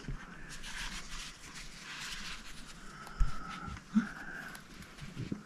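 Pages of an old paper book being turned and handled, with faint paper rustle and a brief low thump about three seconds in.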